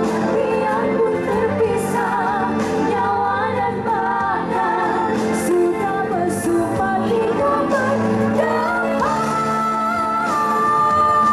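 A woman singing a melody live into a microphone over band accompaniment, with a long held note over the last couple of seconds.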